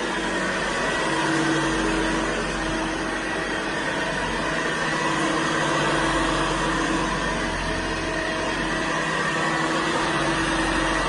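Hoover Senior 652A upright vacuum cleaner running steadily with a constant motor whine, its level swelling and easing slightly every few seconds.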